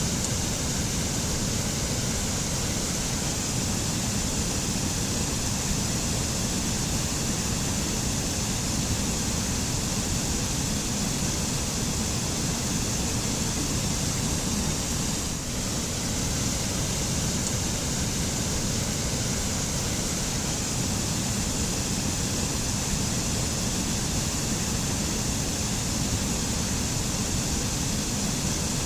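Waterfall falling steadily: an even, unbroken rush of water, full in the low end with a hiss on top, dipping slightly for a moment just past halfway.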